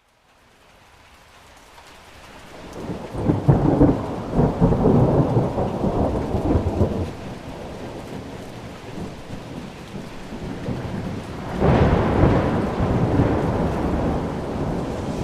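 Thunderstorm: rain fading in from silence, then a long roll of thunder building from a few seconds in, and a second, sudden clap and rumble of thunder near the end, over steady rain.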